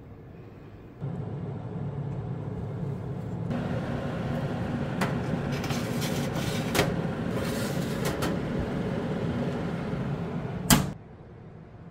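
Cabinet food dehydrator's fan running with a steady hum while its wire racks are slid in, with several light metallic clicks. A sharp clack near the end, then the hum stops.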